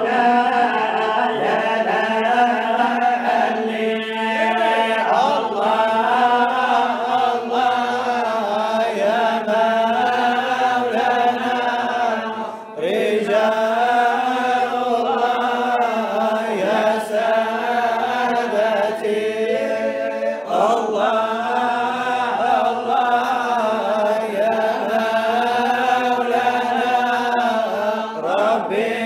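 Unaccompanied male chanting of a Sufi devotional qasida (samaa), sung through a microphone: slow, ornamented melodic lines over a steady low held note, with a brief breath pause about halfway through.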